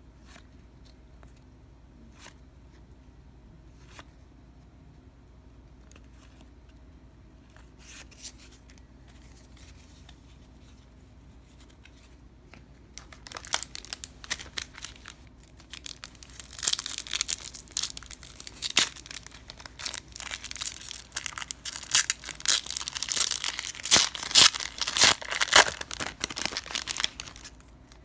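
A trading-card pack wrapper torn open and crinkled by hand: a dense crackling run that starts about halfway through, after a few faint clicks and taps.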